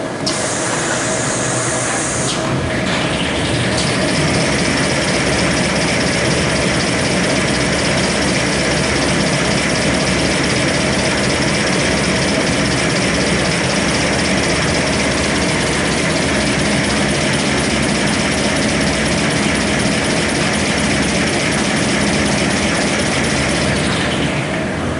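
Kitchen towel paper production line running: rewinder, log conveyor and band saw roll cutter make a steady, dense mechanical din. A brief high hiss comes early, and the noise builds a few seconds in and fades near the end.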